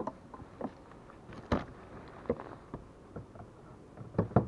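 Irregular light knocks and clicks of gear and handling on a plastic fishing kayak. One louder knock comes about a second and a half in, and two come close together near the end.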